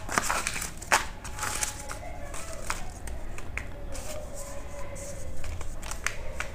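Paper slips rustling and crinkling as a hand stirs through a plastic basket of folded paper chits, busiest in the first couple of seconds, with a sharp click at the start and another about a second in. After that, lighter rustles and a few soft ticks as slips are picked out and laid down.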